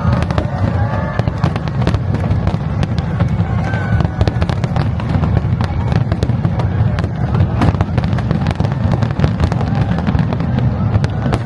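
Large aerial fireworks display: a continuous low rumble of bursting shells with dense, rapid crackling over it.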